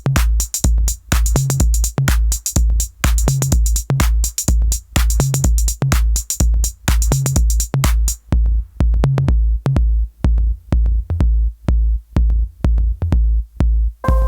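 Drum machine beat: a steady kick drum about twice a second, with bright hi-hat and snare hits over it. About eight seconds in the bright hits drop out, leaving the kick with light ticks. Right at the end a sustained synth tone comes in.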